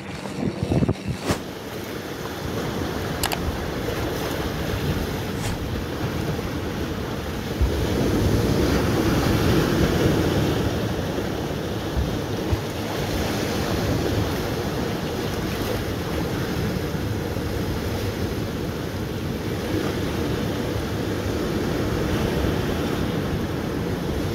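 Small waves washing over a rocky reef shelf, a steady wash that swells twice, with wind on the microphone. In the first second or so, the mountain bike rattling over the dirt trail.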